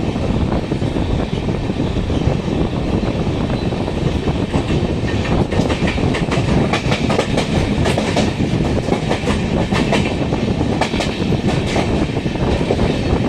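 Passenger train running, heard on board: a steady rumble of wheels and wind. Around the middle the wheels clatter over the track in a quick run of clicks.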